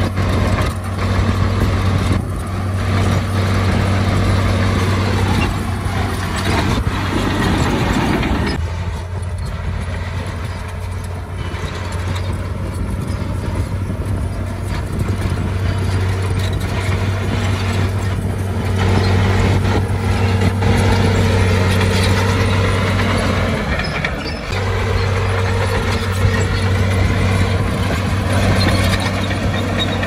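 Heavy diesel earthmoving machinery running steadily with a constant low engine hum, which dips briefly about three-quarters of the way through.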